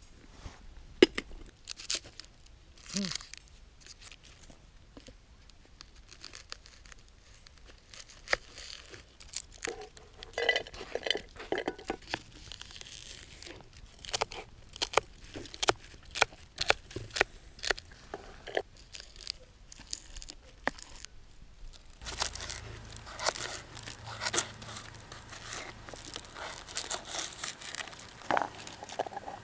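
Small knife slicing fresh vegetables, green stalks and carrots, on a plastic cutting board: an irregular run of crisp clicks and crunches as the blade cuts through and taps the board.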